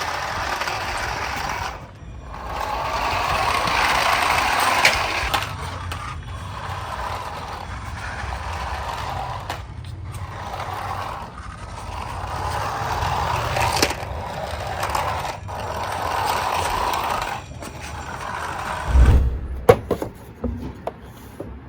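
Toy remote-control car's small electric motor and wheels running across a hard floor in repeated bursts of a few seconds, with a cluster of knocks and thumps near the end.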